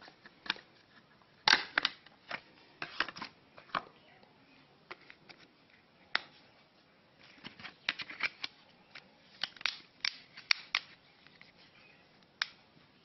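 Sharp plastic clicks and taps of a smartphone being handled as its removable battery is fitted, coming in scattered clusters of quick clicks with short gaps between them.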